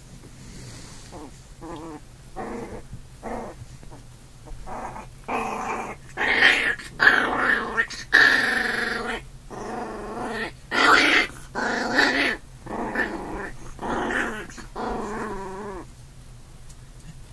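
A puppy growling while play-fighting: a string of short growls that start softly, are loudest in the middle and die away shortly before the end.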